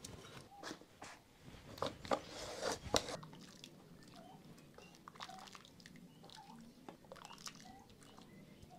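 Ladle clinking and scraping against a clay pot and a clay bowl as soup is served, in a run of short knocks that is busiest and loudest about two to three seconds in, then sparser.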